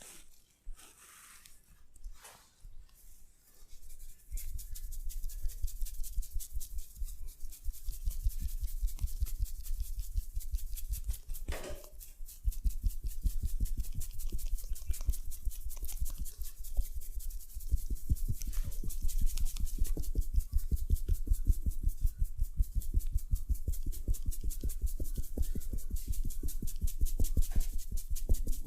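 Rapid rhythmic hand tapping and chopping on a person's head during a head massage, several strokes a second. It starts about four seconds in after a few soft rubs and keeps going with short pauses.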